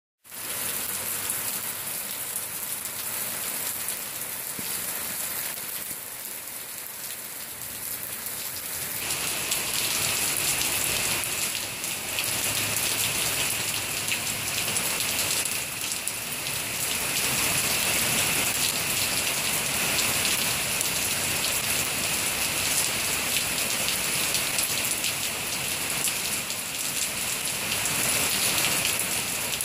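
Heavy rain pouring down steadily, growing louder and fuller about nine seconds in.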